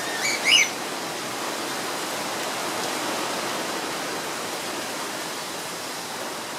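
Two quick high chirps from an aviary bird about half a second in, over a steady rushing noise of wind.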